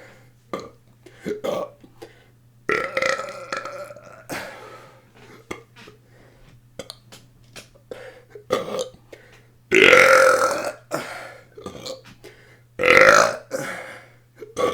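A person burping repeatedly on purpose, about five burps, the loudest and longest about ten seconds in, with faint clicks between them.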